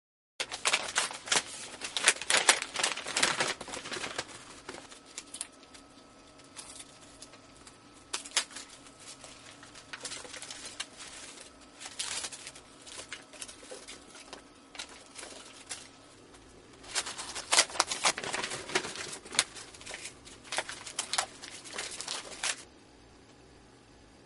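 Rapid irregular clicking and crinkling in two spells, one in the first few seconds and another from about 17 to 22 seconds in, with sparser clicks and a faint steady tone between them.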